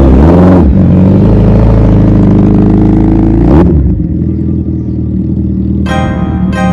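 Suzuki Hayabusa inline-four, on its stock twin silencers, revved up and held at high revs for about three seconds, then dropping back to a lower idle. Piano music comes in near the end.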